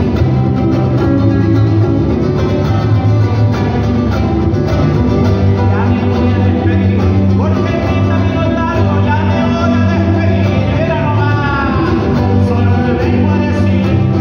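Live band playing a Latin son: a small guitar strummed over steady bass notes, with a man singing from about six seconds in.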